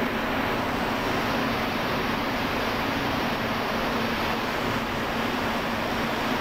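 Loud, steady drone of factory ventilation and machinery, an even rushing noise with a low hum underneath and no distinct knocks.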